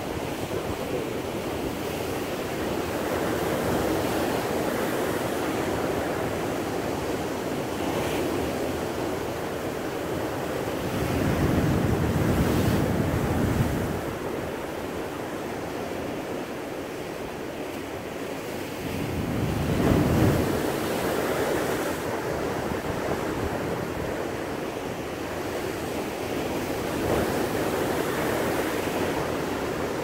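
Ocean surf breaking over and washing around rocks below a cliff: a continuous rushing wash, with two louder, deeper surges, one about a third of the way in and one about two-thirds in. Some wind noise on the microphone.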